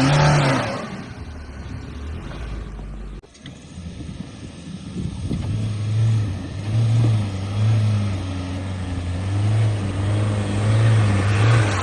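Off-road SUV engine running under load, its note swelling and dipping as it works; the sound cuts off abruptly about three seconds in, then a steady low engine drone carries on, rising and falling.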